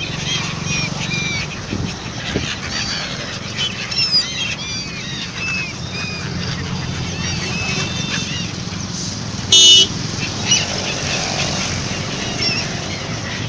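A flock of gulls calling, many short overlapping cries, over a steady engine drone. A brief, loud horn toot sounds about two-thirds of the way through.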